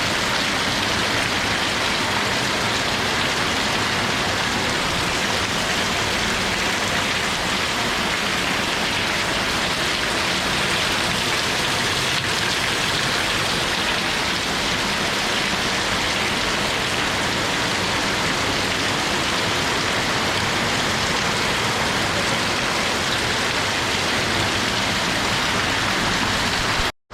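Steady heavy rain falling, an even, unbroken hiss of many drops, that cuts off suddenly at the very end.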